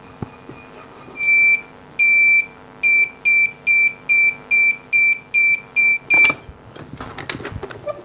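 Electronic beeping from a Powerpack vacuum sealer while it heat-seals a foil pouch: two longer beeps, then about ten short beeps at roughly three a second, stopping about six seconds in. A few sharp clicks follow as the lid is released.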